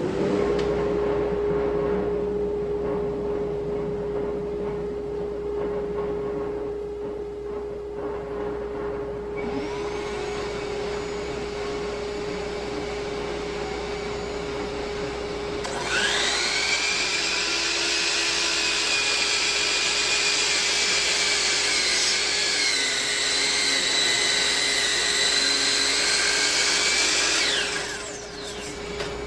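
A shop vacuum runs steadily throughout. About halfway through, a miter saw spins up with a high whine and runs for about twelve seconds, its pitch dipping briefly as it cuts into the wood, then winds down near the end.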